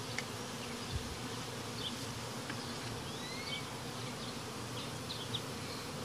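Steady buzzing of a large colony of honey bees flying around their exposed hive, the colony stirred up by a cut-out removal.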